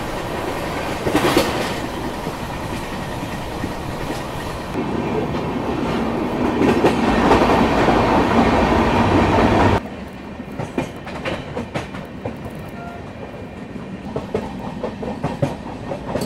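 Passenger train running at speed, heard through the open door of a moving coach: a steady rush of wheels on rails that swells louder in a tunnel. About ten seconds in it drops suddenly to quieter running with irregular clicks of the wheels over rail joints.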